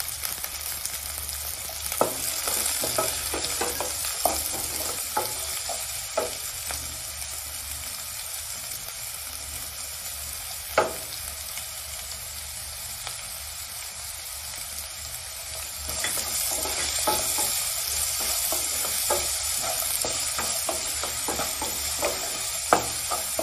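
Chopped onion, green chillies, carrot and beans sizzling in hot oil in a non-stick kadai, stirred with a spatula that scrapes and taps against the pan now and then. The sizzle grows louder for the last several seconds.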